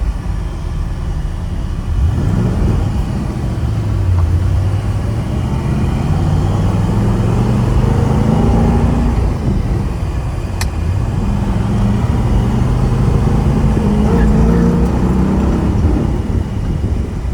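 Pontiac GTO's 455 V8 running under way, its pitch climbing twice as the car accelerates, with a drop between the climbs. A single sharp click comes about ten seconds in.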